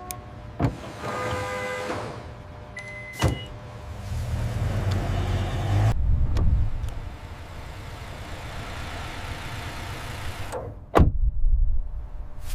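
Layered car sound effects: clicks and short beeps, then a low engine rumble that swells and cuts off abruptly about six seconds in, followed by a whoosh and a heavy thump near the end.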